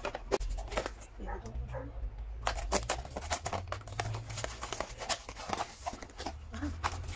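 Paper and a thin paperboard gift box being handled and opened by hand: a run of short crinkles, rustles and flap clicks over a low steady hum.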